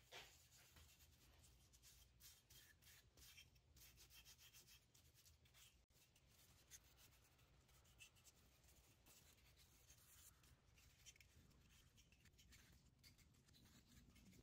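Faint rubbing and scuffing of a rag wiping Osmo oil finish onto a small wooden dog figure, held in gloved hands.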